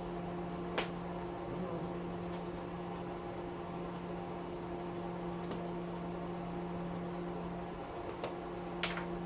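Steady electrical hum, like a small fan motor, with a handful of light clicks and taps from metal parts as a spring and brush pieces are worked off a weed whacker's electric motor.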